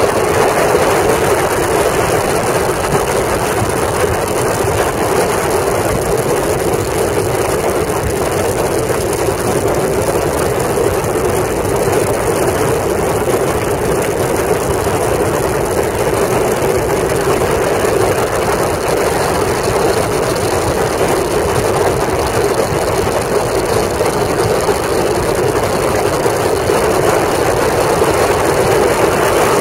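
Boeing Stearman biplane's radial engine running steadily in cruising flight, heard from the open cockpit as an even, unbroken drone mixed with wind rush.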